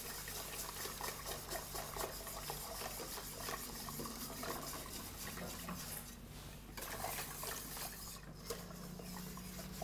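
Faint stirring of a hot egg-yolk and cream mixture in a stainless steel pot: a soft liquid swishing with small scattered ticks, over a low steady hum.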